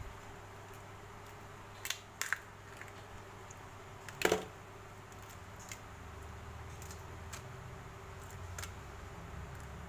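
Raw blue swimming crab being broken apart by hand: a few sharp cracks and clicks of shell snapping, the loudest about four seconds in, over a low steady hum.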